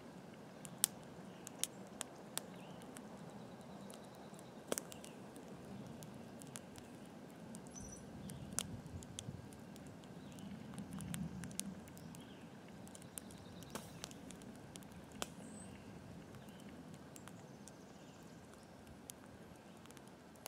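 Wood fire crackling under a cast-iron pot: scattered, irregular sharp pops and snaps over a faint steady background.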